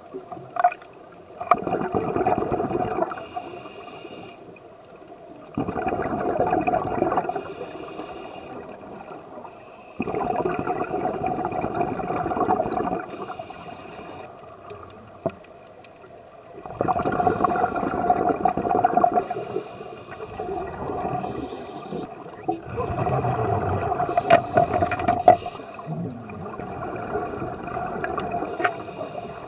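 Bursts of underwater bubbling and gurgling, each two to three seconds long, coming about every five to six seconds over a quieter steady underwater hum.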